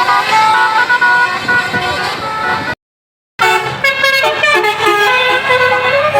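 Bus basuri telolet horns playing a stepping multi-note melody. They break off into a brief dead silence a little under three seconds in, then start again.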